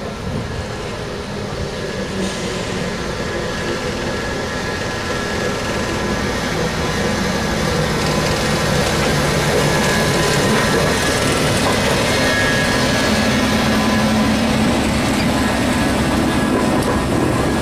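British Railways Class 10 diesel shunter running slowly past, with its engine and the wheels on the rails getting louder as it comes closer and then holding steady.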